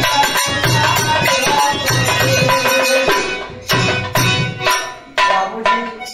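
Bhojpuri birha folk accompaniment: hand drum and jingling percussion playing a rhythm under held melodic notes. A little past halfway the playing thins to separate drum strokes that die away near the end.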